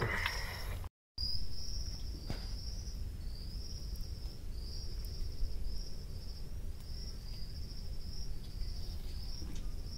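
Insects buzzing in the surrounding scrub: a steady high-pitched buzz that swells and dips about once a second, over a low rumble.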